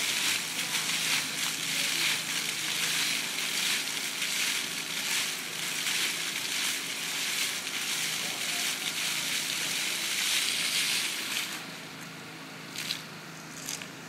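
Water jets of a fountain display spraying and splashing in a steady hiss, which falls away abruptly about eleven and a half seconds in, leaving a quieter background. A steady low hum runs underneath.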